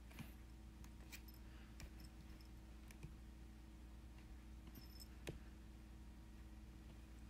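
Near silence: room tone with a steady low hum and a handful of faint light clicks scattered through, the sharpest about five seconds in.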